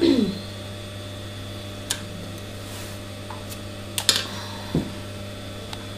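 Scattered light clicks and taps of scissors and fleece fabric being handled on a sewing table, with a cluster of sharp clicks about four seconds in and a soft thud just after, over a steady low electrical hum. A brief voice tails off at the very start.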